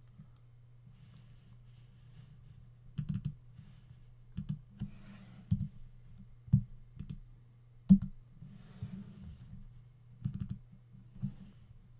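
Scattered computer mouse and keyboard clicks, some in quick pairs, over a steady low hum.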